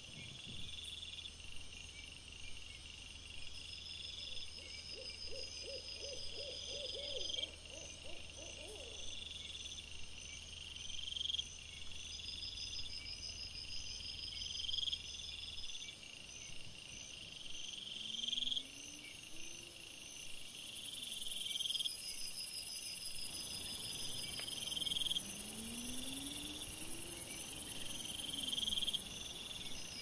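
Night insects, crickets, chirping in a steady repeating pattern, with a high hiss that grows louder for several seconds in the second half.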